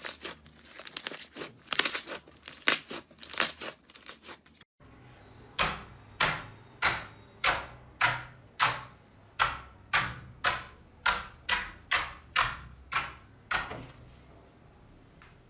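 Crunchy slime being squeezed and worked, a dense run of crackles and pops. About five seconds in the clip changes to a steady series of about sixteen separate sharp crunches or pops, roughly two a second.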